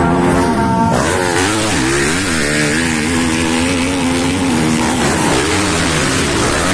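Motocross dirt bike engines revving hard, loud and steady, their pitch rising and falling over and over as the throttle opens and closes during the race.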